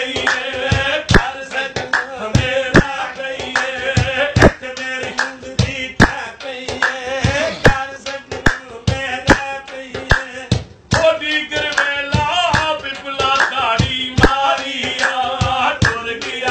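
A man singing a Punjabi folk song to hand drumming on a large metal cooking pot. Sharp slaps on the pot come several a second over a steady metallic ring. The sound cuts out briefly about two-thirds of the way in, then resumes.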